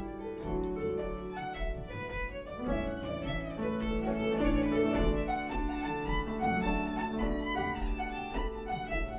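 Irish traditional tune played on fiddle, harp, piano and bodhrán: the fiddle carries the melody over harp and piano accompaniment, with a steady bodhrán beat underneath.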